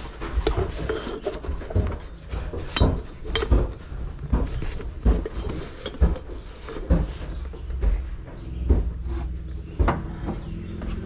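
Handling noise: irregular knocks, bumps and rubbing against the recording device, with occasional light clinks, over a steady low rumble.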